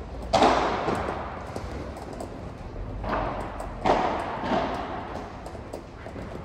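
Padel ball being struck by rackets and rebounding off the court's glass and mesh walls during a rally: a few sharp pops, the loudest about half a second in and two more around three to four seconds in, each echoing in the large hall.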